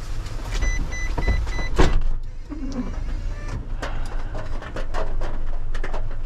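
Small refuse truck's diesel engine idling, heard from inside the cab, with a quick run of four high electronic beeps about a second in and scattered knocks and clatter, the loudest just before two seconds in.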